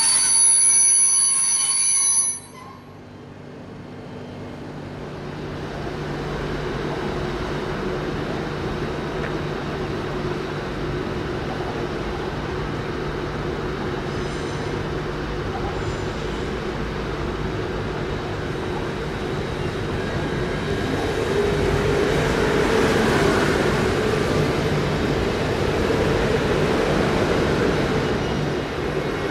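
A shrill squeal of several high steady tones, like wheel or brake squeal, cuts off suddenly about two seconds in. A train's rumble then builds over a few seconds and runs steadily, growing a little louder about twenty seconds in.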